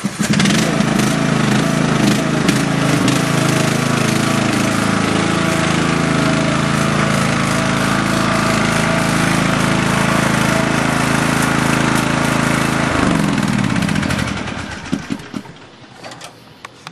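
A small petrol engine running loud and steady at one speed. About thirteen seconds in, its pitch drops and it winds down and dies away.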